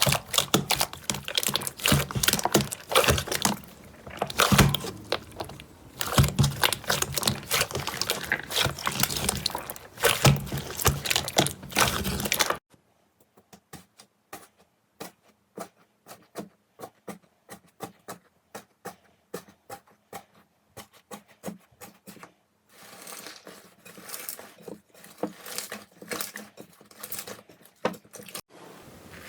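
Slime being worked by hand, making dense crackling and popping clicks. Just under halfway it turns to sparse single clicks, a few a second, then thickens again near the end.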